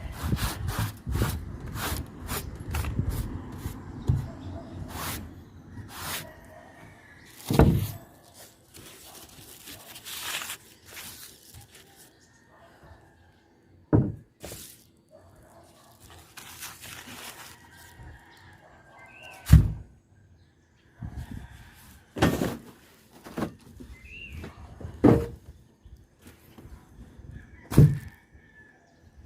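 A series of irregular knocks and thuds, a few loud ones several seconds apart with smaller clicks and taps between them.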